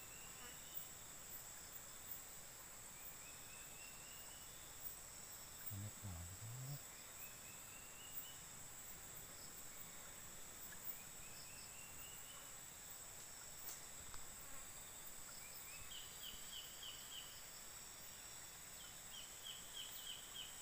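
Faint riverside ambience: a steady high-pitched insect drone, with a short rising call repeated every three seconds or so and runs of quick chirps near the end. A brief low sound comes about six seconds in.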